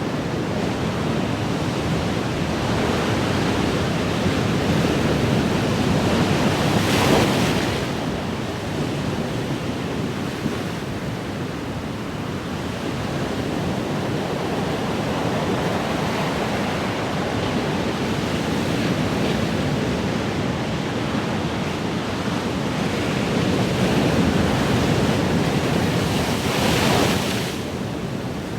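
Ocean waves washing continuously, with two larger waves building up and breaking, about seven seconds in and again near the end, each dropping off suddenly afterwards.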